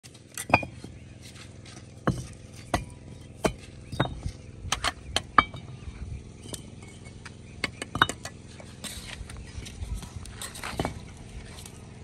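Bricklaying: a steel mason's trowel clinking and tapping against fired-clay bricks and a metal mortar bowl, with bricks knocked into place. The clinks and knocks come irregularly, some with a brief metallic ring.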